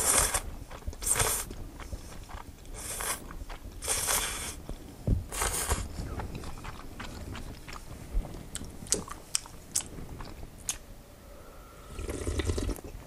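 Udon noodles slurped from chopsticks in about five short pulls over the first six seconds. Chewing with small wet mouth clicks follows, and near the end broth is slurped from the bowl.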